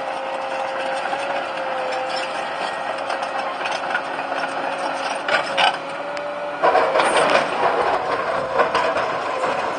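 Liebherr 944 excavator running with a steady whine. Two brief knocks come just past halfway, and about two-thirds of the way in it breaks into louder clattering and knocking.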